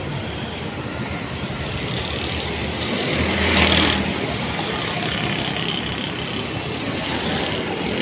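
Street traffic noise, with a motorcycle passing close by, loudest about three and a half seconds in.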